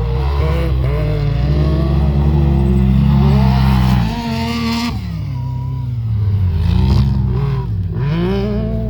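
Supercharged Yamaha YXZ1000R's three-cylinder engine, fitted with an aftermarket exhaust, revving up and falling back several times. The pitch climbs, then drops sharply about four seconds in, then climbs again twice.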